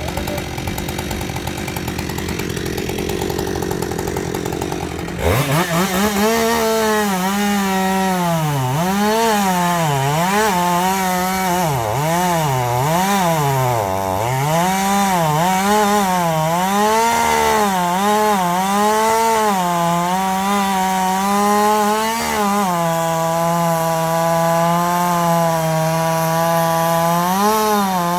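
Chainsaw running at low speed, then opened up to full throttle about five seconds in and cutting through the fallen tree's wood. Its engine pitch dips and recovers again and again as the chain loads in the cut, then holds steadier near the end.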